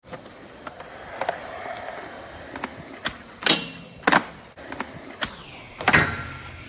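Skateboard wheels rolling on concrete, with a sharp tail pop and hard board clacks about halfway through. Near the end comes a loud impact as the board hits the metal handrail, followed by a short metallic ring.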